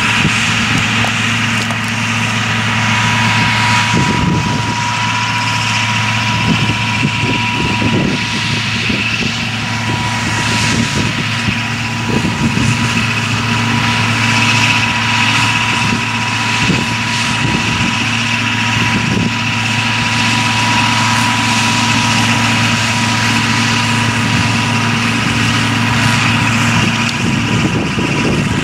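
A John Deere tractor engine running steadily under load while it drives a Spectrum 310-DF electrostatic sprayer through its PTO. The sprayer's fans blow as they spray, and a steady high tone runs through the whole sound.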